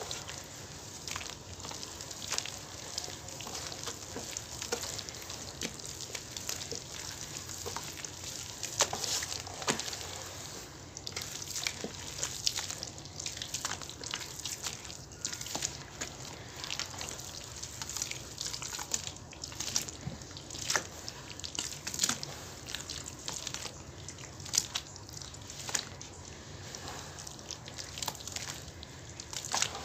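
Hands squeezing and swishing wet cement and baking soda paste in a tub of water: continuous squelching and sloshing, broken by many irregular sharp splashes and drips.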